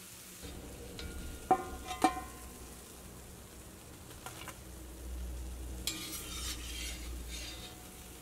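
Steel slotted spatula clinking twice against a wok, with ringing, about a second and a half and two seconds in, over a faint sizzle of hot frying oil; softer scrapes of the spatula follow.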